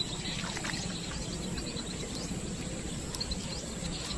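Outdoor background ambience: a steady low hiss with a few faint, short bird chirps.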